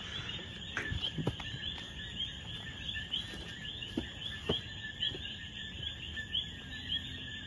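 Evening chorus of calling insects: a shrill, steady pulsing that repeats a few times a second. A few faint scuffs of footsteps in grass sound now and then.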